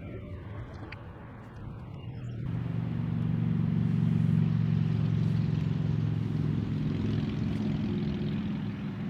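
An engine running steadily, its low hum swelling in about two and a half seconds in and holding, like a motor vehicle idling or passing slowly close by.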